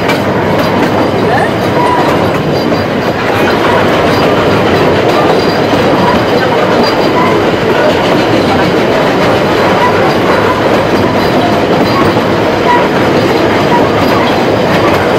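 Narrow-gauge steam train's carriages running along the track, heard from aboard: a steady, loud clatter and rumble of wheels and carriage.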